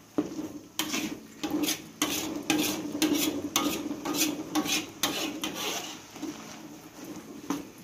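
A metal spatula scraping and knocking against a wok in repeated irregular strokes as it stirs thick spice paste, which is being cooked down until it dries a little.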